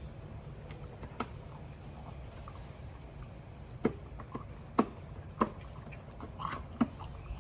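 Bulldog puppies moving about: five sharp taps and knocks, spread out and irregular, over a steady low hum.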